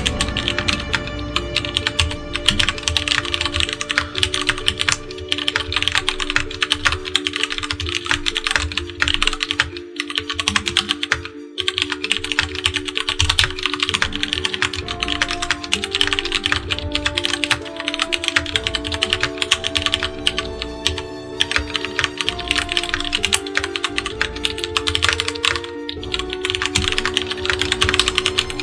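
Fast, continuous typing on a Das Keyboard Model S mechanical keyboard with Cherry MX switches: a dense run of key clacks, thinning briefly about ten seconds in, heard over background music.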